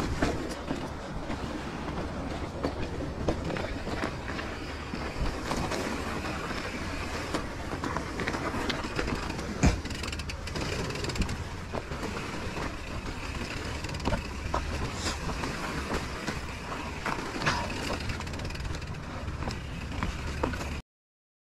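Mountain bike rattling and clattering as it rides over rough rock, with a continuous rumble and many sharp knocks as the wheels hit rock edges. The sound cuts off suddenly near the end.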